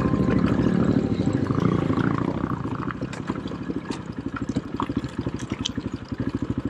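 An ATV engine idling with a steady, even throb. It runs louder at first, then settles to a quieter idle.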